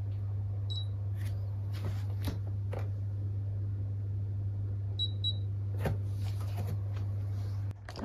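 Digital body-composition bathroom scale beeping: one short high beep about a second in as it switches on, then a quick double beep about five seconds in as the weight reading settles. Under it are a few soft knocks of bare feet stepping on the scale and a steady low hum that cuts off near the end.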